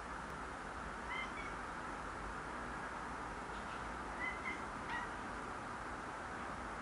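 Cat chirping: short, high, bird-like chirps, a pair about a second in and three more around four to five seconds in.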